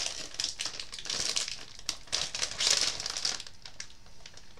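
Plastic chip bag crinkling and crackling as it is handled, busiest through the first three seconds and quieter near the end.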